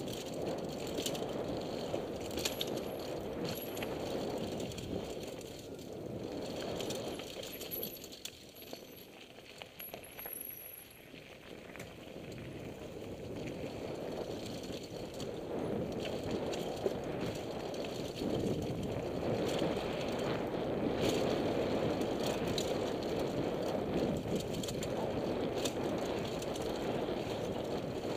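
Mountain bike ridden down a dirt trail: steady tyre noise on dirt and fallen leaves, with chain and frame rattling over bumps. It eases off for a few seconds in the middle, then grows louder again.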